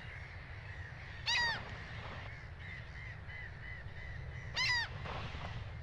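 Common gulls calling: two short, high calls, one about a second in and one near the end, with a run of faint quick notes in between, over a low steady background noise.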